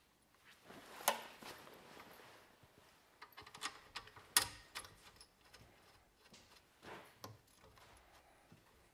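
Scattered light metallic clicks and taps, about half a dozen, with the sharpest a little past the middle, as a braided steel oil feed line and its fitting are handled and threaded onto a turbocharger's oil inlet.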